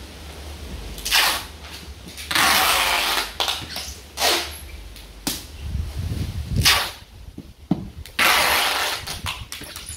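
Packing tape pulled off the roll in several long, noisy strips and pressed onto a cardboard box, with cardboard rubbing and knocking in between.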